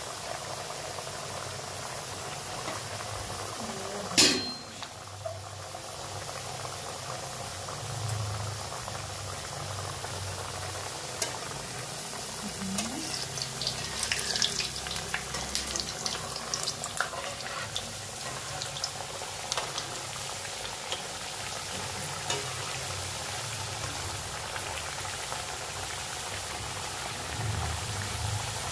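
Rings of rice-flour dough deep-frying in hot oil in a kadai: a steady sizzle and bubbling, with a single sharp knock about four seconds in and a spell of louder crackling and spattering around the middle.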